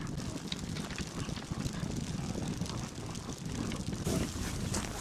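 Low, uneven rumble of wind buffeting the microphone, with a few faint scattered clicks.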